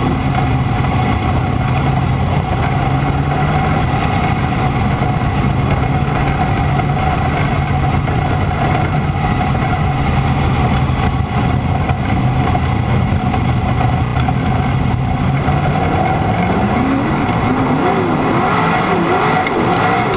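Sprint car engine heard from the cockpit, running steadily at low speed while rolling in formation. In the last few seconds the revs swing up and down over and over as the throttle is blipped.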